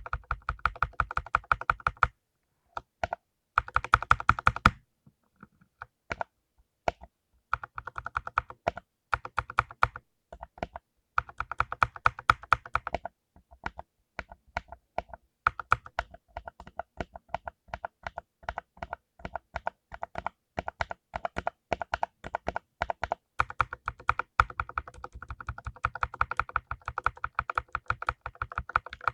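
Typing on a full-size mechanical keyboard with lubed blue switches: rapid, crunchy clicking keystrokes in bursts, broken by brief pauses.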